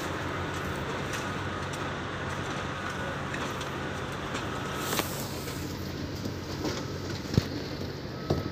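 Steady construction-site background noise with a low mechanical hum, broken by a sharp click about five seconds in and a couple of smaller clicks near the end.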